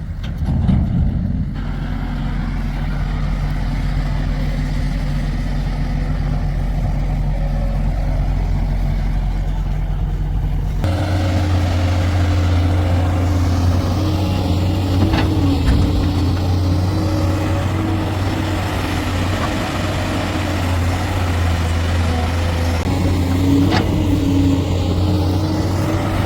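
Heavy diesel engine of earthmoving machinery running steadily. The engine note changes abruptly about eleven seconds in, and two short knocks come later.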